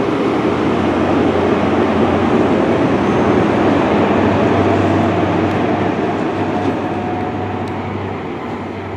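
Diesel train running past, its rumble and steady engine hum building to a peak around the middle and then fading away.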